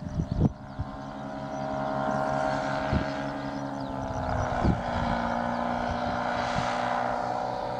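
A motor hums steadily and dips briefly in pitch about four and a half seconds in, while wind gusts thump on the microphone a few times.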